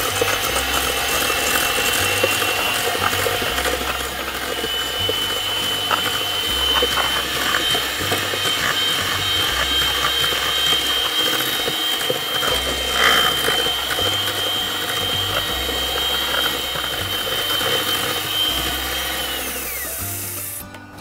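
Electric hand mixer running steadily with a high motor whine as its beaters cream butter and sugar in a stainless steel bowl. The whine steps up slightly in pitch a few seconds in, then winds down near the end as the mixer is switched off. Background music plays underneath.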